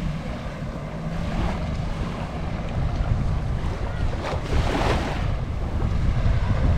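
Surf washing onto a sandy beach, with wind rumbling on the microphone; a wave swells in and washes up about four to five seconds in.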